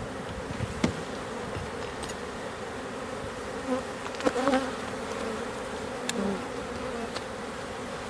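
Honey bees from an open hive buzzing, a steady hum, with a few short clicks scattered through it.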